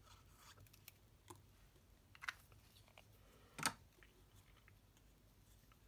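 Near silence with faint handling noises of cardstock and a plastic liquid glue bottle: a few small rustles and clicks, and one sharper tap about three and a half seconds in.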